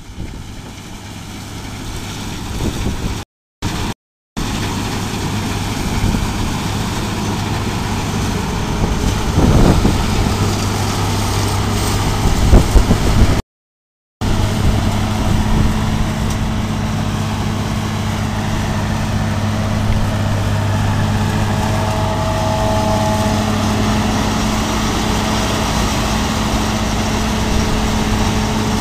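Bizon BS Z110 combine harvester's engine running steadily with an even low hum. The sound cuts out briefly twice in the first half.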